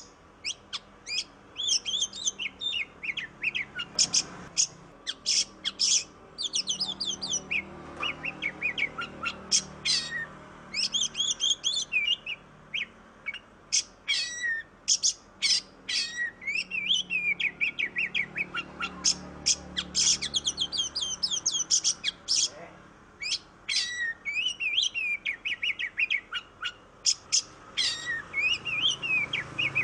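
Oriental magpie-robin (kacer) singing a long, varied song of rapid high whistles, chirps and trills, phrase after phrase with only brief pauses between.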